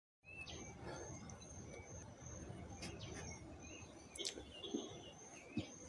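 Faint outdoor ambience of short bird chirps over a steady, repeating high insect trill, with a few faint clicks and low knocks in the last two seconds.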